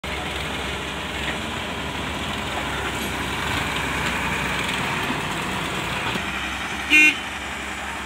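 Sonalika farm tractor's diesel engine running steadily as it drives in with its trailer, with one short horn toot about seven seconds in.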